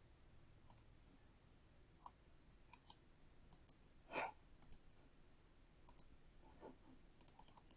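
Computer mouse clicks and keyboard keystrokes. Single clicks come every second or so, then a quick run of keystrokes near the end.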